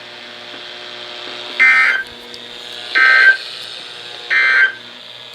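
Three short digital data bursts from a NOAA Weather Radio receiver, evenly spaced about a second and a half apart, each a harsh buzzing chirp. These are the SAME end-of-message bursts that close a warning broadcast. Steady radio hiss and hum lie between them.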